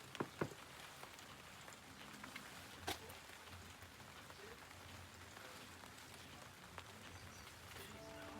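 Faint, steady patter of light rain, with a few single drops tapping louder, the clearest about three seconds in.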